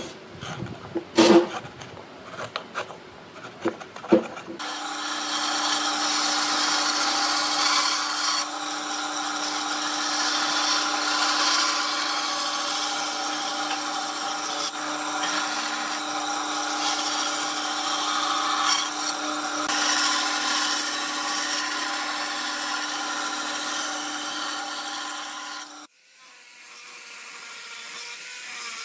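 A few sharp knocks on wood, then an electric power tool runs steadily against wood for about twenty seconds, with a constant motor pitch under the grinding noise. It cuts off sharply near the end, leaving a fainter steady hum.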